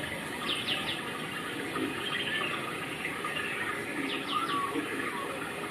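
Small birds chirping: a quick run of three high chirps about half a second in and another near four seconds, with softer twittering between, over a steady rushing background.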